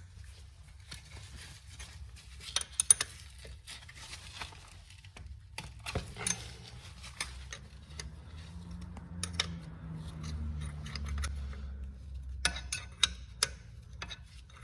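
Hand tools clinking and clicking against metal while the old splash guard bolts behind a BMW 730d brake rotor are worked loose, the sharp clicks coming in small clusters. A faint low hum rises in the middle and fades.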